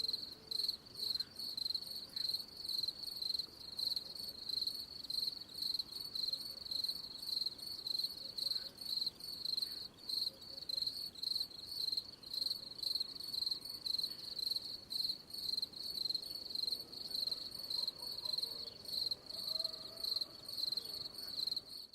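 Cricket chirping: a steady, high-pitched trill pulsing about twice a second, which stops abruptly at the end.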